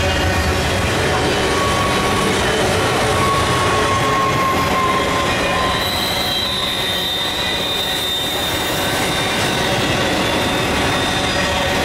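Double-stack intermodal well cars rolling past at speed: a steady rush of steel wheels on rail, with thin high wheel squeals coming and going, a lower one in the first seconds and a higher one from about halfway through.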